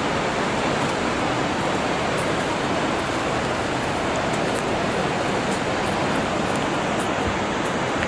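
Krimml Waterfalls: a steady, even rush of falling water.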